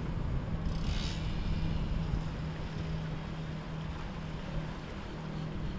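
Motorboat engine running with a steady low drone, over wind rumble on the microphone, with a brief hiss about a second in.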